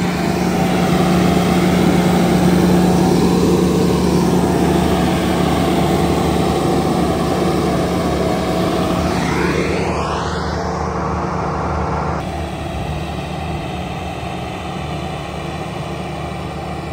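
Skid-steer loader with a hydraulic rotor-head grinding attachment working ground, its engine a steady loud drone, with a rising whine about nine seconds in and a little quieter after about twelve seconds.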